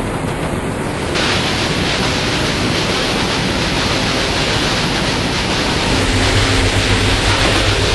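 Ship's engine-room machinery running, a loud, steady noise. The hiss grows louder about a second in, and a deep hum comes up near the end.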